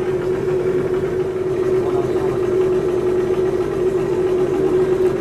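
Outboard motor pushing a dugout canoe, running steadily at an even pitch.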